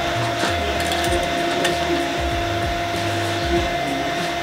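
A steady machine-like hum with two held tones, and a few faint clicks about half a second and a second and a half in. No air rifle shot.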